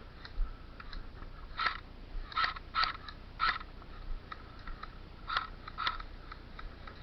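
Footsteps crunching on the ground, a few irregular steps with the loudest crunches bunched in the middle of the stretch.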